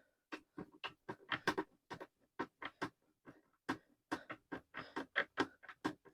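Irregular small clicks and knocks of parts being handled and fitted together during assembly, a few per second.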